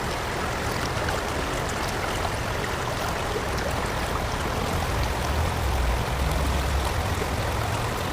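Running water of a stream or waterfall, a steady rushing with a low rumble that swells from about five seconds in.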